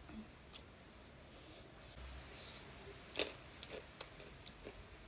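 Faint eating sounds: chewing and small wet clicks and smacks from mouths and fingers while rice is eaten by hand, with a sharper click a little past three seconds in.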